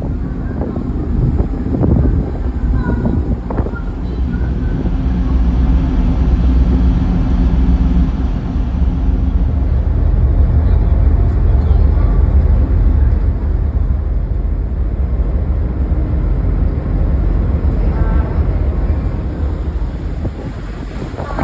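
Steady low rumble aboard a car ferry under way: the ship's engines and wind on the microphone, with faint voices in the first few seconds.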